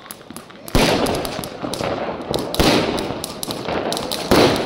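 Fireworks going off: three loud bangs, each followed by a trailing crackle, with scattered sharp pops in between.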